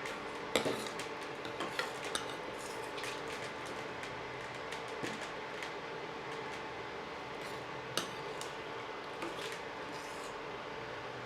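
A serving spoon clinking and scraping against a pot and plate as potato curry is dished up. There are scattered irregular clinks, the sharpest about half a second in and another near 8 s, over a steady faint hum.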